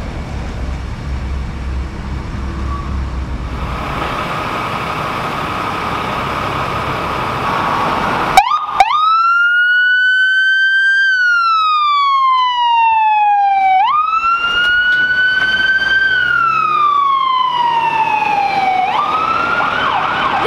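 A vehicle engine running for the first several seconds, then, about eight seconds in, an ambulance's electronic siren switches on with a sharp blip and wails in slow sweeps, rising and falling about every five seconds, twice, before climbing faster near the end.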